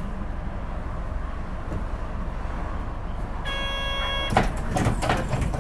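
Hino Blue Ribbon City KL-HU2PREA city bus idling at a stop, heard from inside the cabin, with a steady low rumble. About three and a half seconds in, a door buzzer sounds briefly. The doors then close with a clatter of knocks and hiss as the bus gets ready to pull away.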